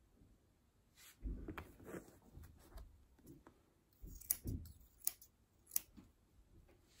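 Grooming scissors snipping through a standard poodle's curly coat where it sticks out beyond a metal comb. A few faint, crisp snips come between about four and six seconds in, with soft rustling as the coat is handled.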